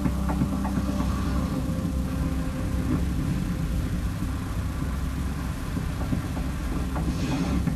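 A low, steady rumble from the soundtrack of a video being played out.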